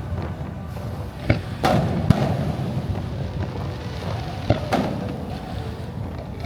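Fireworks going off: a handful of sharp bangs in two clusters a few seconds apart, over a steady crowd and music din.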